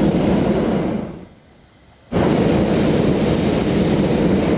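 Hot-air balloon's propane burner firing in loud blasts. The first blast dies away about a second in, and a second blast comes on suddenly about two seconds in.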